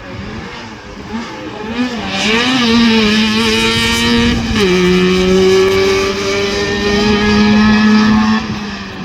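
Rally car engine running hard at high revs, its note holding steady with a sudden drop in pitch about halfway through, then holding steady again.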